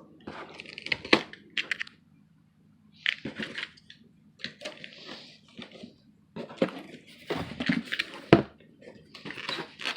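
Cardboard box and packing material being handled and pulled apart while a 3D printer is unpacked: irregular rustling and scraping, with a sharp knock about a second in and another near the end.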